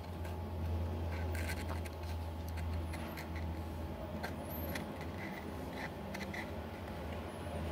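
Faint scattered clicks and scratches of small tools and adhesive being worked around a phone's frame, over a steady low hum.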